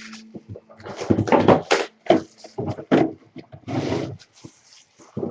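Handling noises: a run of knocks and rustles, loudest about one to two seconds in.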